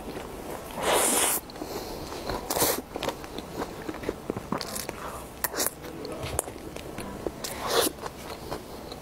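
Close-miked eating sounds: a mouth taking a spoonful of soft layered cream cake with grapes and chewing it. The loudest noisy bursts come about a second in and again near the end, with many small sharp clicks between them.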